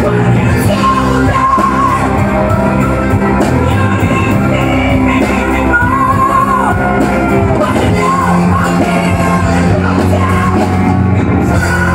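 Live country-rock band playing loud: a woman singing with full voice into a microphone, a man singing along, over electric guitar, keyboard and drums.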